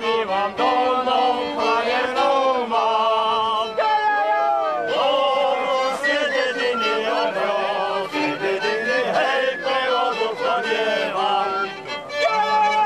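A Slovak folk song, sung with fiddle accompaniment; the voice holds long notes with a wavering vibrato.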